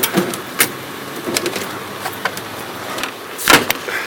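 Scattered clicks and knocks of metal hardware being handled at a payphone booth's ad panel, with one louder clunk near the end, over city street traffic noise.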